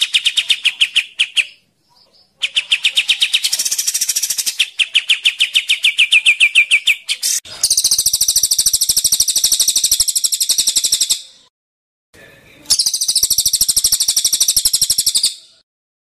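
Caged songbird singing a masteran recording of fast, rapidly pulsed trills, several phrases of a few seconds each with short breaks between. The first phrases sit lower in pitch; from about halfway through the trills turn higher and buzzier.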